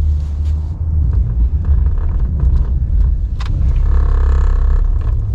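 Ram 1500 Classic pickup truck's engine running steadily with a low rumble while snow plowing. Near the end a whine comes in for about a second, then stops.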